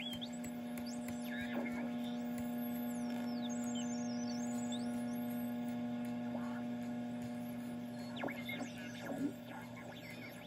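Homebrew SolderSmoke-DCR direct-conversion receiver putting out a steady mains hum with a stack of overtones, with faint whistles sliding in pitch over it; the strongest hum tone drops out near the end. This hum is typical of a direct-conversion receiver run off a power supply, which the builder puts down to its unshielded PTO.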